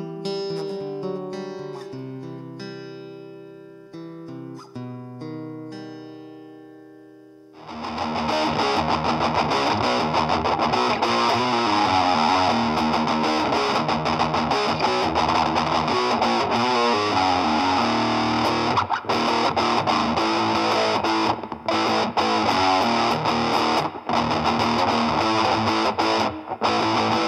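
Guitar played through a Fender Passport Mini 7-watt amplifier and recorded off its speaker. Clean picked notes ring out and fade. About eight seconds in, a distorted electric guitar preset takes over and plays on loudly without a break.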